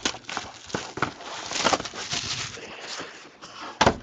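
Hands handling a cardboard trading card hobby box: rustling and light clicks and taps, with a sharp knock near the end as the box meets the table.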